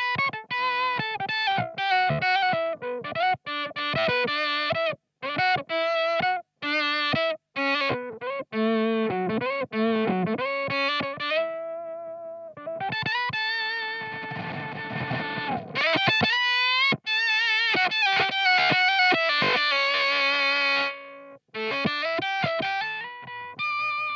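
Electric guitar, a Fano Omnis MG6 with P90 pickups, played through the Teisco Fuzz pedal with its octave switched on, giving a thick, synth-like octave fuzz tone. Short choppy notes that cut off sharply come first, then longer held notes from about halfway through.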